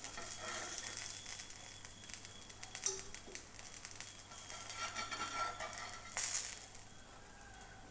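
Brinjal slices sizzling and crackling in shallow oil and butter in a nonstick frying pan, with small clicks and scrapes of metal tongs as the slices are lifted out. A short louder hiss comes about six seconds in.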